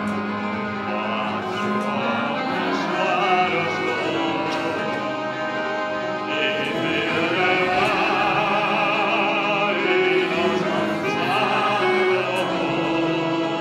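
Hungarian magyar nóta song: a man singing with vibrato over an instrumental accompaniment.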